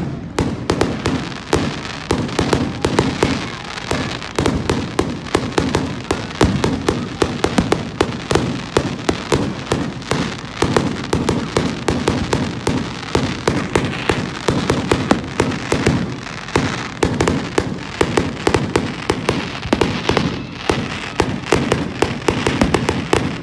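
Fireworks crackling and popping in a long, unbroken run of many sharp pops a second, starting suddenly.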